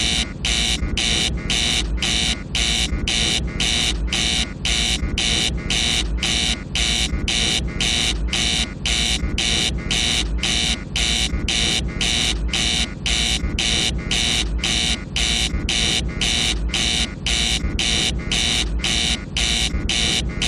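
Apollo command module master alarm, a rapid, even train of beeps repeating without a break over a low steady rumble.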